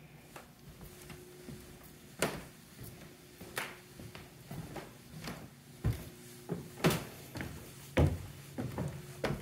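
Footsteps on bare wooden stairs: a few scattered knocks at first, then closer, louder thuds about one to two a second from about six seconds in as someone climbs. A faint steady hum runs underneath.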